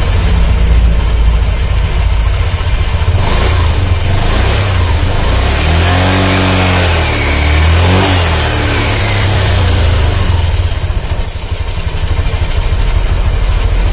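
Honda Vario 150 scooter's single-cylinder engine and CVT running, revved through the middle so the pitch rises and falls, with a rough, snoring drive noise. The mechanic takes this roughness for a worn rear-pulley clutch or its bearing.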